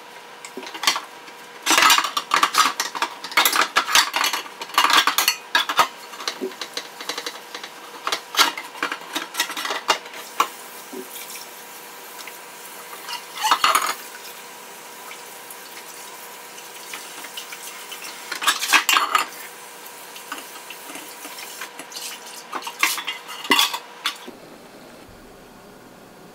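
Stainless steel pots being scrubbed and handled in a kitchen sink: irregular clattering and knocking of metal against metal and the sink, heaviest in the first several seconds, with faucet water running in the quieter stretch between. A faint steady hum sits underneath.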